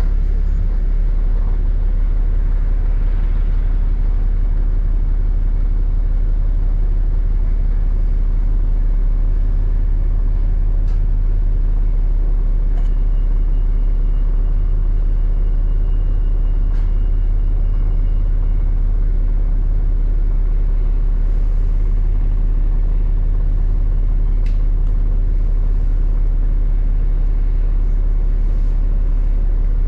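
Steady low rumble of a London double-decker bus running, heard from inside the bus, with a few faint clicks and rattles.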